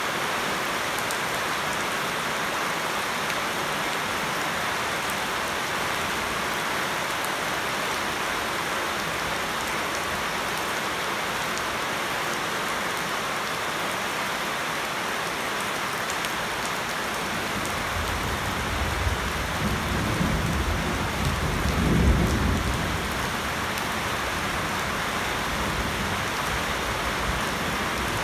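Heavy rain falling steadily on foliage and a flooded paved yard. About two-thirds of the way through, a deep roll of thunder builds, peaks, and fades away over several seconds.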